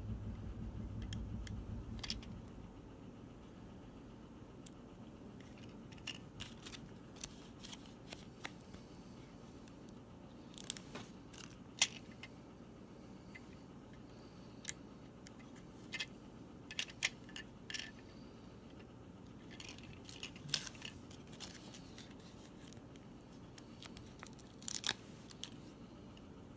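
Scattered clicks, snips and crinkles of hands working with small plastic parts and packaging while putting together a DIY candy kit. A low hum stops about two seconds in.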